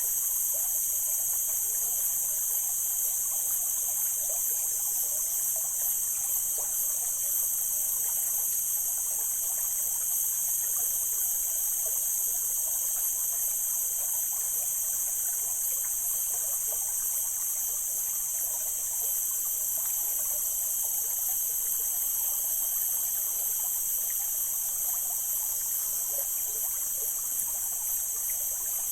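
Mountain stream flowing and trickling steadily. Above it runs a loud, unbroken high-pitched drone.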